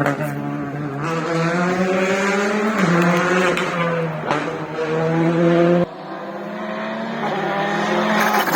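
Rally car engine accelerating hard, its pitch climbing and dropping back at each upshift through several gears.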